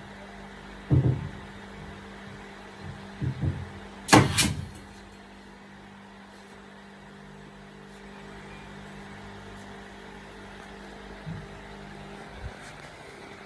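A steady low mechanical hum with several knocks or thumps. The loudest and sharpest comes about four seconds in, and two fainter ones come near the end.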